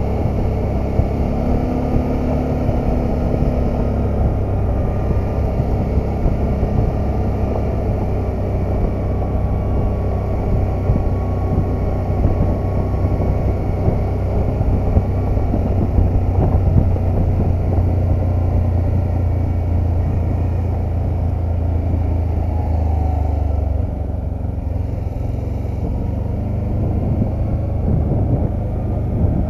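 The engine of a handlebar-steered touring vehicle runs steadily at road speed on a gravel road, with wind and tyre noise over it. About 24 s in the engine note drops as the vehicle slows, and near the end it rises again as it speeds up.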